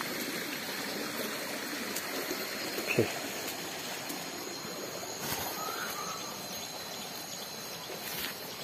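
Steady trickle of flowing water, as from a small stream. About three seconds in there is a brief tone sliding down in pitch.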